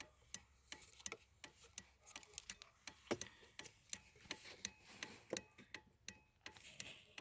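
Audi 80 left turn signal switched on, its flasher ticking: a run of faint, sharp clicks.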